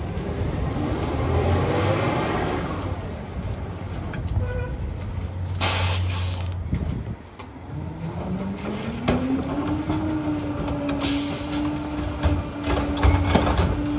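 Rear-loader garbage truck at work. A short hiss of air comes about six seconds in. Then the engine's pitch rises over a couple of seconds and holds high and steady as the packer runs, with knocks of bins at the hopper near the end.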